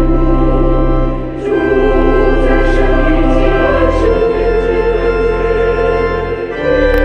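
A slow hymn sung by a choir over held organ-like chords, the chords changing every two to three seconds.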